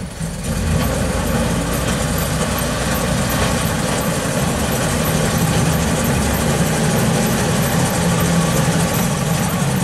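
Mitsubishi dump truck's diesel engine running steadily under load as the truck works its chained rear wheels through deep mud.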